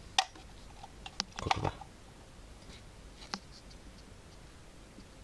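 A few short, sharp plastic clicks and taps from working a hot glue gun over a plastic AA battery holder, bunched in the first two seconds with one more a little past three seconds in.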